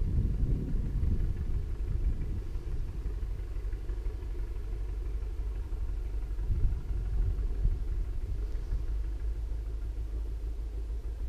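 A low, steady rumbling noise with no clear pitch, swelling briefly about six and a half seconds in.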